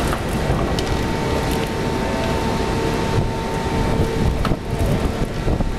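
Outdoor background noise: wind rumbling on the microphone over a faint steady hum, with a few faint clicks.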